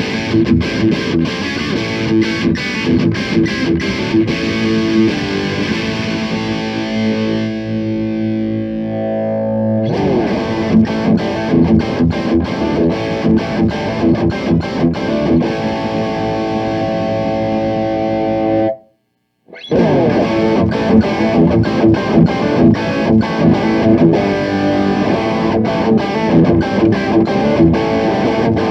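Fender Stratocaster played through a Fire Custom Shop Ultimate Distortion pedal into a Peavey Bandit 112 amplifier: heavily distorted electric guitar riffs, quickly picked and broken by chords left to ring out. The playing stops dead for under a second about two-thirds of the way through, then the riffing resumes.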